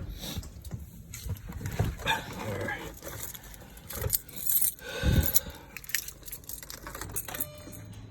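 Car keys jangling with handling clicks and knocks, including one heavier thump about five seconds in.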